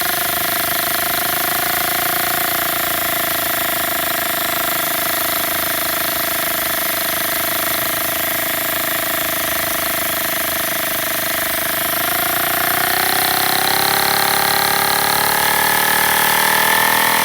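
Homemade single-cylinder paper air engine running on compressed air with a steady, fast buzz over a hiss. Over the last few seconds its pitch rises as it speeds up.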